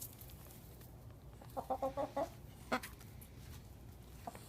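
Chicken clucking: a quick run of about five short clucks about one and a half seconds in, then a single sharp click.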